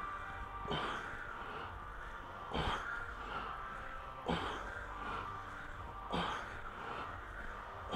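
A lifter's forced breathing under a heavy dumbbell press: a short, sharp exhale with each rep, about five in a steady rhythm roughly every two seconds.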